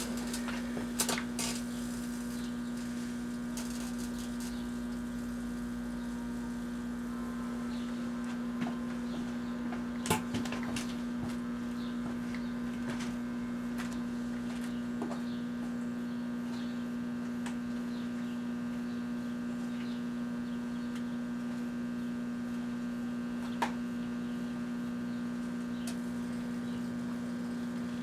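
Kenmore microwave oven switching on and running with a steady low hum, heating a Rubik's Cube. A few sharp clicks and ticks sound over the hum, the loudest about ten seconds in.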